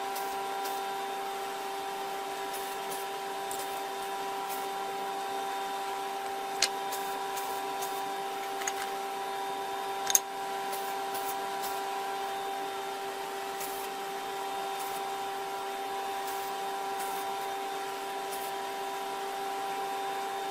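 Small electric motor running at a steady speed with an even hum, and a few light clicks partway through.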